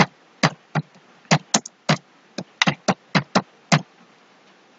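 Typing on a computer keyboard: about a dozen quick, unevenly spaced keystrokes as a name is entered, stopping a little before the end.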